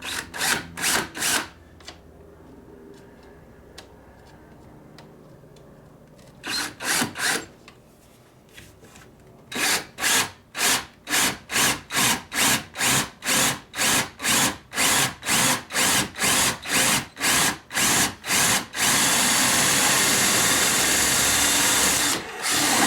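Power drill drilling mounting holes, run in short trigger pulses: a few at first, then a long even series of about two a second, then held on steadily for about three seconds near the end.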